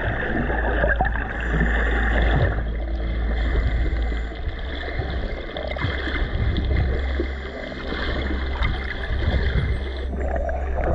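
Water swishing and gurgling around an underwater camera as a snorkeler swims, with a steady low rumble and many small clicks; the sound changes abruptly twice.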